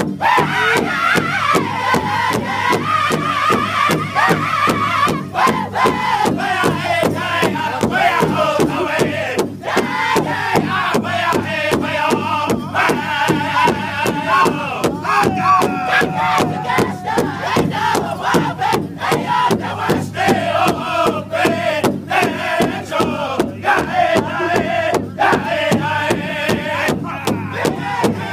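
Powwow drum group singing together in high voices over a steady, even drumbeat, several men striking one large hide-covered powwow drum in unison with drumsticks.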